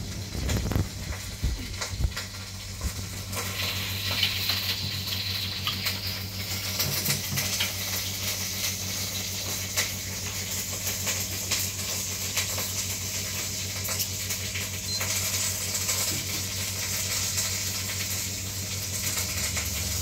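Steady high hiss with many small scattered crackles over a constant low hum.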